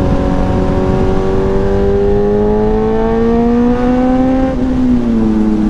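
Sport motorcycle engine pulling under throttle while riding, its note climbing steadily for a few seconds, then dropping sharply about four and a half seconds in and falling away as the throttle is eased.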